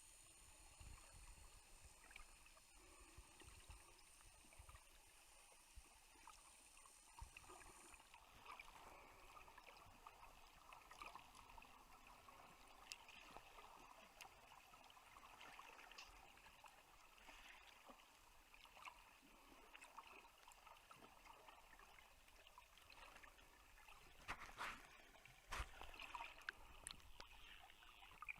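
Faint underwater sound from a snorkelling camera: a soft water hiss with scattered light crackling clicks, a few louder ones near the end.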